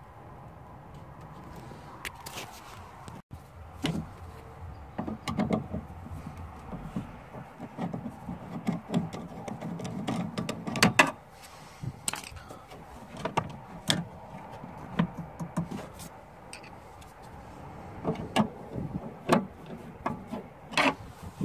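Irregular clicks and knocks of a metal hand tool working the bolts of a car door's window regulator, metal tapping against the regulator and door frame.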